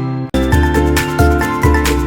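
Background music with sustained notes over a steady beat, cutting out for a moment about a third of a second in and then starting again.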